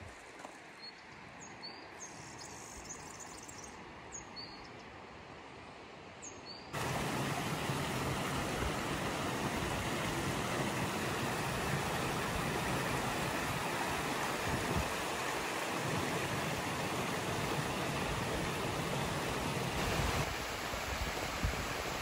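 A few short, high bird chirps over quiet outdoor air, then, about seven seconds in, an abrupt change to the loud, steady rush of a mountain stream tumbling over rocks.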